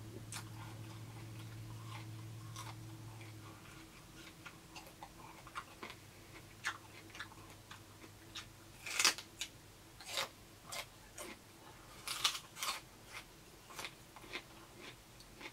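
Close-up crunching and chewing of raw green bell pepper: sharp, separate crunchy bites and chews, loudest about halfway through and again near the end.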